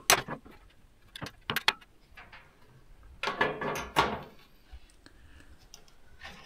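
Handling of an electric oven's sheet-metal control panel: a few sharp clicks and taps near the start, then about three seconds in a scraping slide lasting about a second as the panel is shifted.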